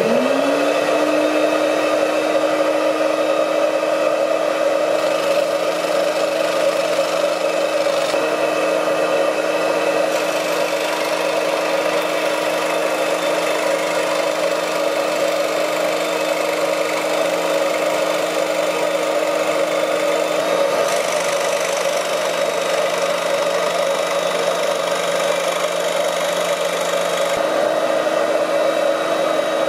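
Proxxon scroll saw starting up, its motor hum rising briefly and then running steadily as the blade cuts plywood on a sawing sled.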